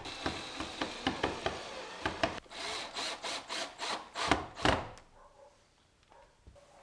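Cordless drill/driver driving screws through a steel hinge into wood, a run of short rasping strokes with a faint high motor whine. It stops about five seconds in.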